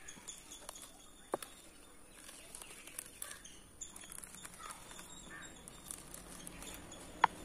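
Coriander seeds faintly crackling as a hand roller is pressed over them on a cloth, splitting them for sowing. There is a sharp click about a second in and a louder one near the end, with faint bird chirps now and then.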